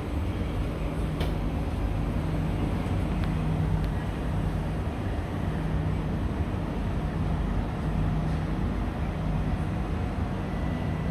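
Steady hum and drone of a stationary SMRT C151C metro train held at the platform with its doors open, its onboard equipment running while it waits for the train ahead to clear the next station. A low hum in the drone swells and fades slightly.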